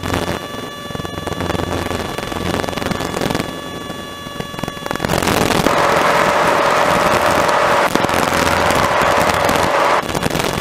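Robin DR400 light aircraft's piston engine and propeller droning steadily in cruise, heard in the cockpit. About five seconds in, a louder hiss with a steady tone comes in abruptly over the drone and cuts off just as abruptly about five seconds later.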